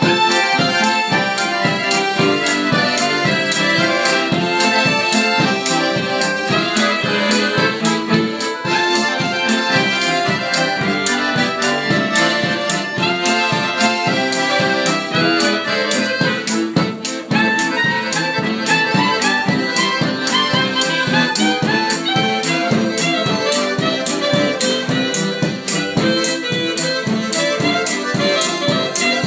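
Live acoustic band music: two accordions and a cello play a tune with a clarinet, over a steady percussive beat.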